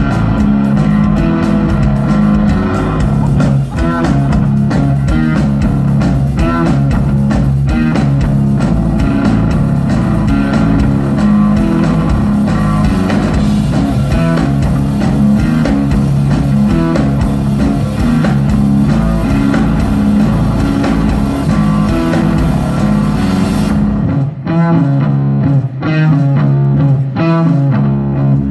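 Live stoner rock from electric guitar, bass guitar and drum kit. About four seconds before the end the drums and bass drop out, leaving the guitar playing alone.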